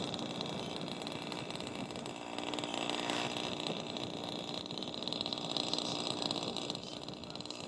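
A twin-motor RC model Mosquito in flight, its motors and propellers giving a steady drone with a high whine. The drone swells a little about three seconds in and again around six seconds.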